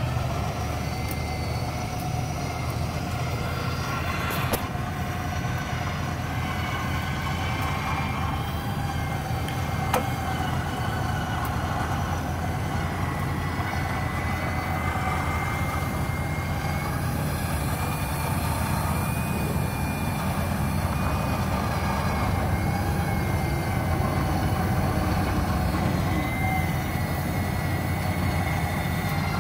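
Pickup truck's engine running steadily while its front-mounted winch runs under load, a thin wavering whine over the engine drone, as the winch pulls the truck up a muddy bank.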